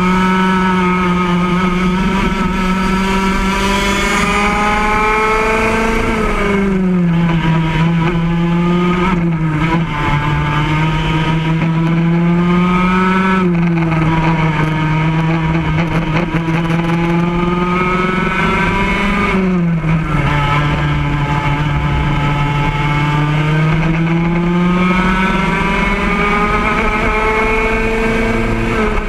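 Racing kart engine heard onboard under load. Its pitch climbs slowly along each straight and drops sharply each time the throttle is lifted for a corner, three times and again at the very end.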